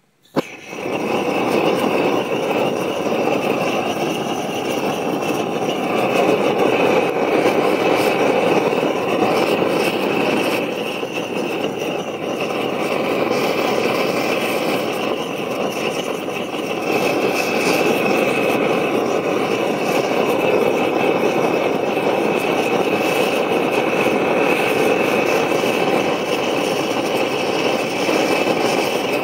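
Large flames around a burning baseball flare up with a sudden whoosh about half a second in, then burn loud and steady with a rushing noise.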